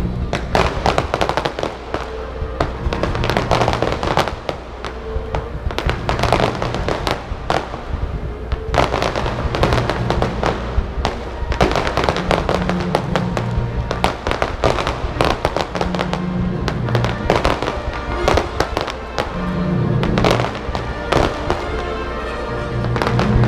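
Aerial fireworks bursting, many sharp reports in quick succession, with music playing along.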